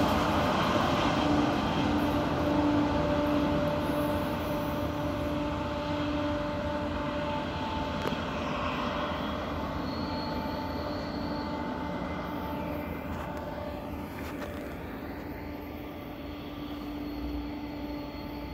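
Double-stack container freight train rolling past, the cars rumbling with a steady wheel squeal, the sound slowly fading.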